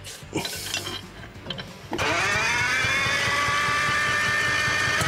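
Detroit Diesel engine of a Champion motor grader starting abruptly about two seconds in, its pitch climbing quickly and then settling into a steady run. Before it fires there are faint clinks of tools on metal.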